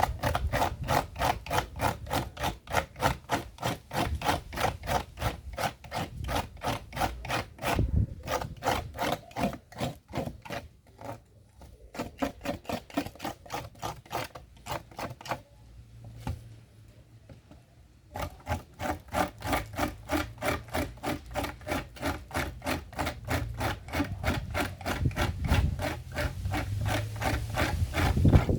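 A hand tool worked back and forth on the speaker-box material in steady scraping strokes, about three a second, with two short pauses midway.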